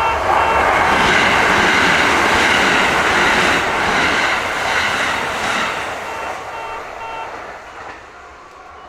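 A Kintetsu Kashihara Line train running over a station level crossing, its wheel and running noise loud for about six seconds and then fading. The crossing's warning bell, chiming about twice a second, shows through again as the train noise drops and stops about seven seconds in.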